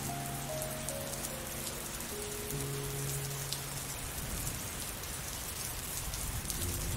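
Steady rain falling. Slow, soft music of long held notes sits over it in the first half and fades out about four seconds in.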